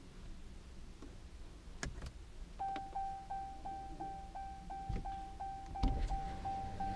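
Power rear sliding window of a 2019 Ram 1500 cab running, a steady whine with a regular ticking about three times a second, starting a little over two seconds in after a couple of switch clicks.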